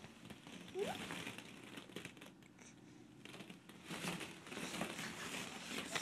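Hollow plastic ball-pit balls rustling and clacking against one another as a toddler shifts around in them, with a brief rising squeak just before a second in.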